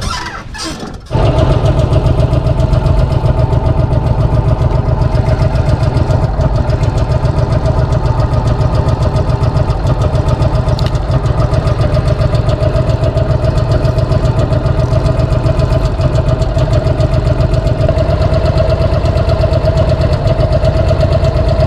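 A boat's motor running steadily with a fast, even pulse, starting abruptly about a second in.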